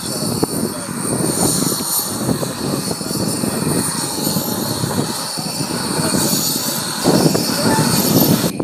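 Narrow-gauge steam tank locomotive moving off slowly, its exhaust chuffing and its open cylinder drain cocks hissing steam.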